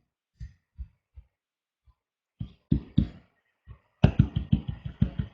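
Keys tapped on a computer keyboard: a few scattered keystrokes, then a quick run of them about four seconds in.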